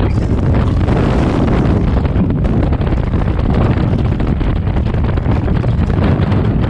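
Freefall airflow buffeting a skydiver's camera microphone: loud, steady wind noise, heaviest in the low end.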